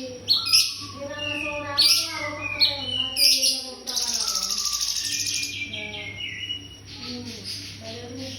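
Cungkok songbird singing a varied run of sharp chirps, fast repeated note series and whistled phrases.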